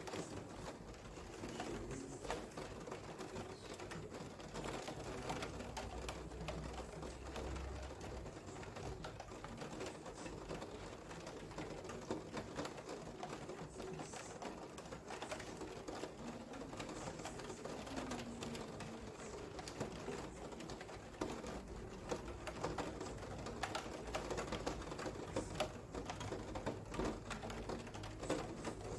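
Rain falling: a dense, steady patter of drops, with faint low wavering sounds underneath.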